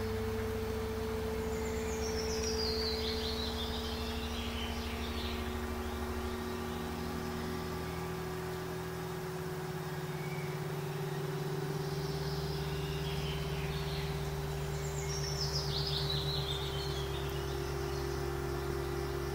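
Fantasy ambient soundscape: low sustained drone notes that shift slowly, with a bird's descending chirping trill about two seconds in and again around fifteen seconds.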